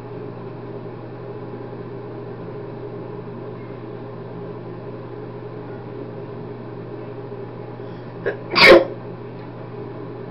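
A man sneezes once, loudly, about eight and a half seconds in, with a brief catch of breath just before it. A steady low room hum runs underneath.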